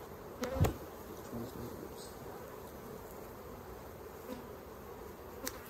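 Honeybees buzzing over an open hive as a steady hum, with a sharp knock about half a second in and a faint click near the end.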